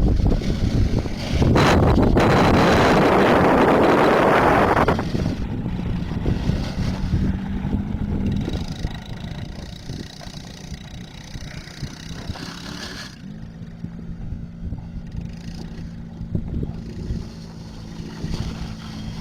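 Small ATV engine running at a steady pitch, with loud wind noise on the microphone for the first few seconds.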